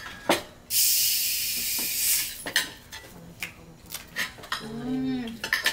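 Cutlery and plates clinking and tapping during a meal, in separate clicks. About a second in, a steady high hiss lasts a little over a second, and a brief voice is heard near the end.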